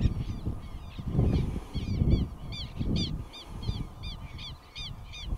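A bird calling over and over in short, harsh, arching notes, about three a second, under low, irregular rumbles that come and go.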